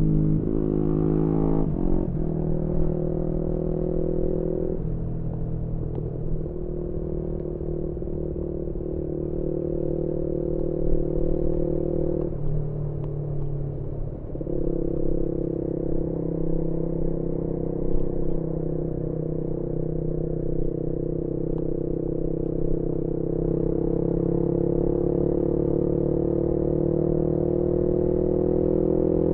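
Single-cylinder engine of a 2018 Yamaha MT-125 with an aftermarket GPR exhaust, heard onboard while riding. The engine note steps to new pitches several times as gears change, with a break in the note around the middle, then rises slowly under steady acceleration near the end.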